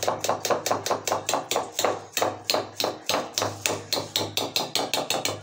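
Wire whisk beating a thick flour-and-milk dough mixture in a bowl, its wires knocking against the bowl's side in a fast, steady rhythm of about five or six strokes a second.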